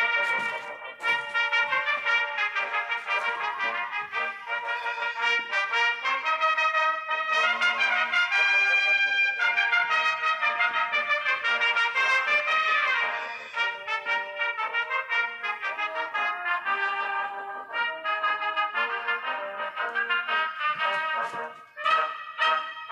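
Instrumental background music with a brass lead playing a melody in held notes.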